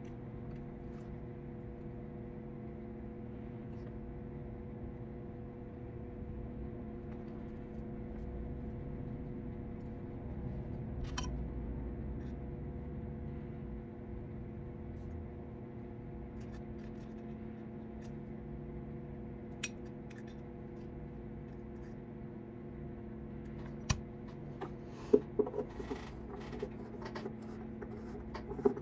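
Steady low hum from a running machine in a violin-making workshop, with a few small clicks as tools and small fiddle parts are handled. In the last few seconds a quick run of sharper taps and scrapes as a hand tool is worked against the violin body.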